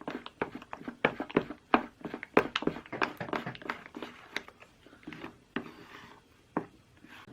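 A quick, irregular run of light taps and clicks, several a second, slowing toward the end and stopping just before a steady hum starts.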